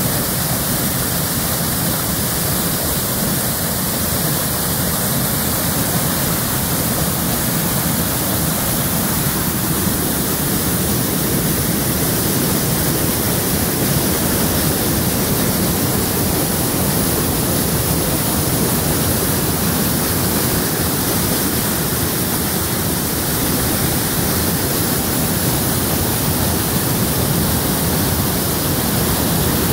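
Rain-swollen waterfall pouring heavily, a loud steady rush of falling water heard from very close to the falls.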